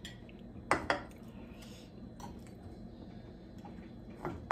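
A fork and serving spatula clinking against a plate as food is served: two quick clinks close together about a second in, a lighter one a second later, and another near the end, over a low steady background hum.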